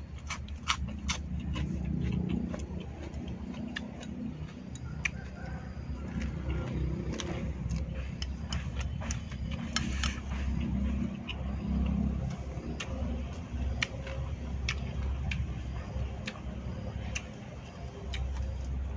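A man eating: chewing, with sharp clicks of chopsticks against a rice bowl, a quick run of them in the first second and scattered ones after. Under it runs a steady low rumble.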